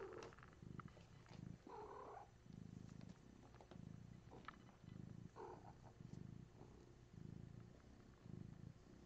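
A domestic cat purring faintly and steadily, the purr swelling and fading with each breath about once a second, with soft rustling of fur and blanket.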